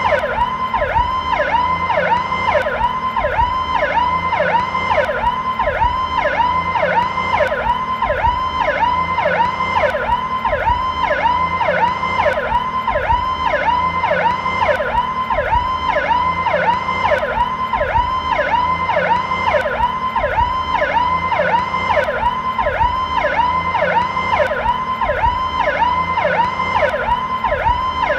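American police siren sounding its Powercall tone, slow version: a rapid warble in which the pitch repeatedly dips and climbs back, about twice a second, without a break.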